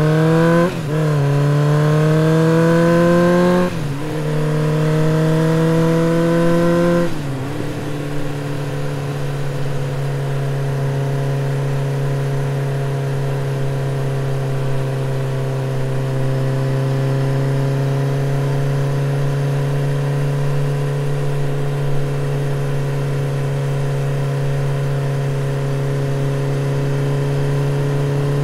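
Sport motorcycle engine accelerating through the gears, its pitch rising and dropping sharply at each upshift about 1, 4 and 7 seconds in, then cruising at a steady pitch.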